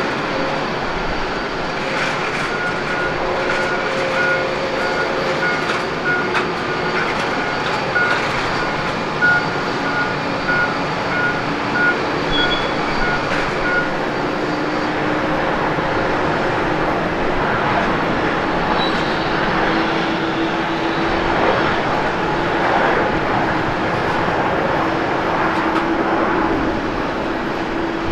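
Boeing 737-700 jet engines at takeoff power as the airliner rolls down the runway and climbs away: a steady, loud jet noise with a low engine tone that rises slowly in pitch through the second half.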